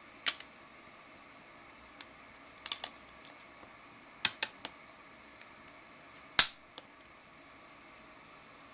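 About ten sharp clicks and taps of something hard being handled, some single and some in quick groups of three, the loudest about two-thirds of the way through.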